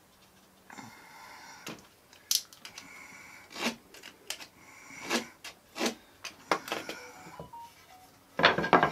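A marking knife scraping along a wooden batten in a series of short strokes to score layout lines, with sharp clicks as the knife and square are set against the wood. Near the end, wooden battens knock together as one is picked up.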